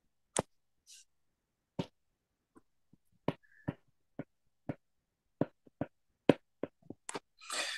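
Stylus tapping and clicking on a tablet screen during handwriting: about a dozen sharp separate clicks at irregular intervals, closer together near the end, with a short hiss just before the end.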